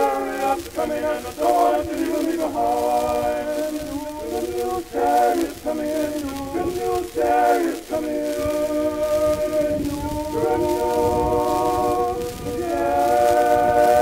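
An archival recording of a choir singing a spiritual unaccompanied. Short sung phrases with brief breaks give way to longer held chords, and a louder chord swells near the end.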